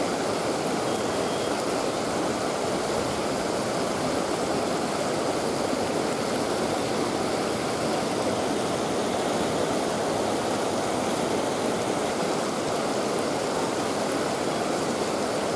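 Steady rush of flowing water at a dam, an even noise that holds at one level without breaks.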